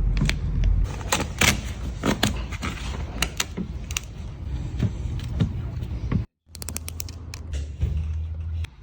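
Vinyl car-wrap film being worked on a car: a run of creaks and sharp crackling clicks. The sound cuts out abruptly about six seconds in, then more clicks follow.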